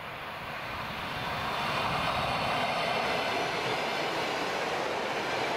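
ET2M electric multiple unit approaching and passing close by: the steady running noise of the train on the rails, growing louder over the first two seconds and then holding as the cars go past.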